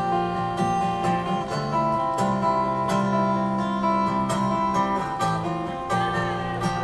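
Instrumental passage of a live pop song: strummed guitar over sustained chords with a steady beat, no vocals.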